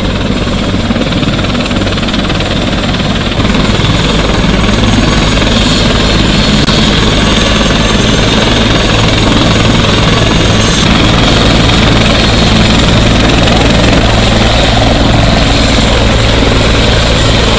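Helicopter running on the ground with its rotor turning: a steady rotor and engine drone under a high whine, stepping up louder about three and a half seconds in.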